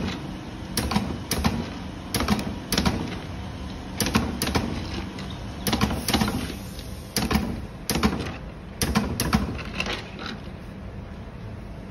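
Scissors snipping thin nickel battery-connector strip into small tabs, a sharp metallic click with each cut, irregular and often in pairs, about one or two a second, thinning out near the end.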